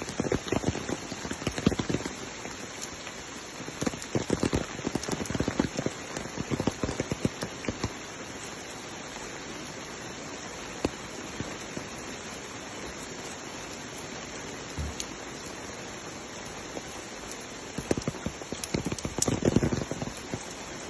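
Rain falling steadily. Spells of louder, irregular drop strikes come at the start, again a few seconds in, and near the end.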